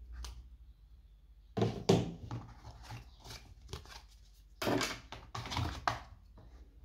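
Paper and cardboard phone packaging being handled: rustling, scraping and light knocks as a paper insert and the plastic charger are lifted out of the box. The sounds come in two clusters, one near two seconds in and a louder one around five seconds in.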